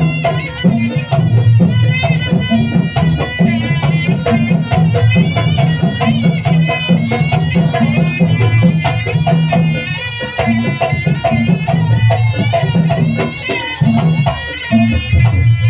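Live East Javanese folk dance music: hand drums beating steadily under a wavering, ornamented lead melody, played without a break.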